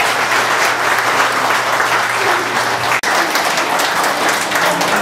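Audience applauding: dense, steady clapping from a roomful of people, with a momentary break about three seconds in.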